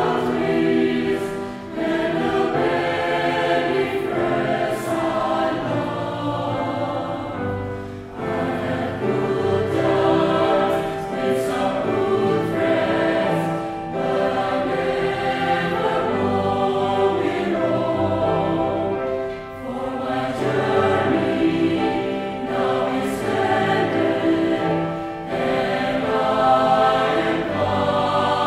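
Mixed choir of women's and men's voices singing a song in several parts, accompanied by a grand piano, with short breaks between sung phrases.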